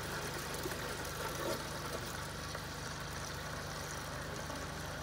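Steady low hum of an idling engine, even throughout.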